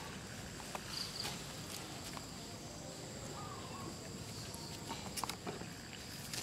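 Soft rustles and scattered faint ticks of a macaque walking over dry leaf litter, over a steady high insect drone. A faint short chirp comes about three seconds in.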